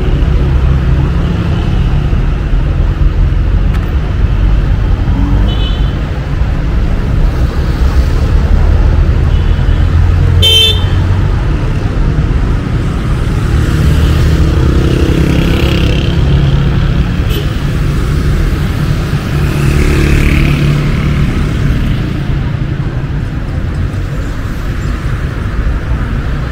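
Busy city street traffic: a steady rumble of passing cars, with a short car horn toot about ten seconds in.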